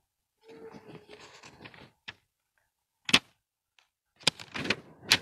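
Soft rustling, then scattered sharp knocks and clicks, the loudest about three seconds in and a cluster of them near the end.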